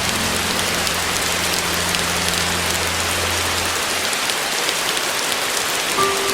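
Steady rain falling, an even hiss throughout. A low held piano note dies away in the first few seconds, and new piano notes begin near the end.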